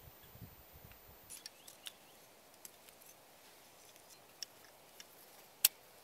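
Light scattered clicks and taps of split wood sticks against a homemade tin-can wood stove as it is loaded with kindling. Near the end comes one sharp click as a disposable lighter is struck to light it.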